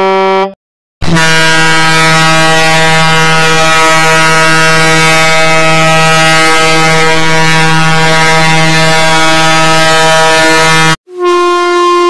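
Horn sound effect played from a phone soundboard app: one long, steady, low horn blast of about ten seconds. A short higher horn tone cuts off about half a second in, and another higher horn sound starts near the end.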